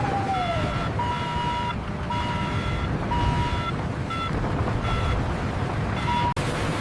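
Heavy industrial machinery running with a steady low rumble, over it a repeating electronic warning beep of about one tone a second, the later beeps shorter.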